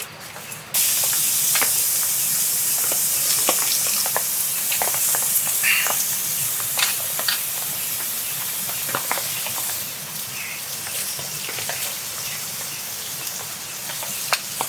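Meat sizzling on a hot pan, starting suddenly about a second in as it goes on the heat, a steady hiss with scattered crackling pops.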